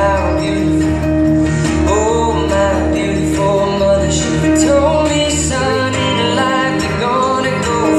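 Recorded song with a singing voice over a steady bass and instrumental backing, playing continuously.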